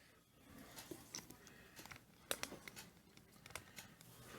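Near silence with a few faint, scattered clicks and taps: a Ninja Foodi multicooker's inner pot and pressure lid being set in place.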